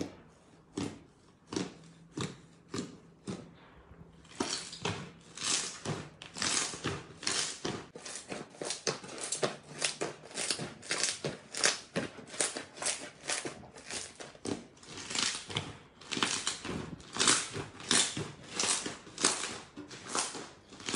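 Fluffy cotton-type slime squeezed and kneaded by hand, giving crackly, squishy pops with each squeeze. The pops are sparse and quieter at first, then come thicker and louder from about four seconds in, two or three a second.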